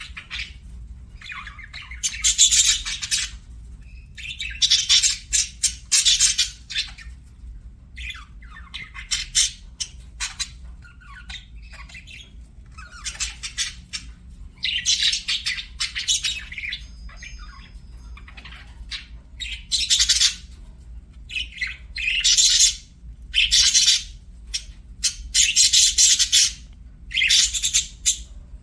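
Budgerigars chirping and squawking in repeated bursts of rapid, high-pitched chatter, each about a second or two long, with short pauses between.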